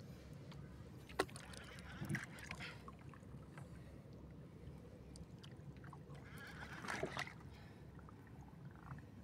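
Water lapping against a small wooden outrigger boat over a low steady rumble, with one sharp knock about a second in and short louder bouts of sloshing around two and seven seconds.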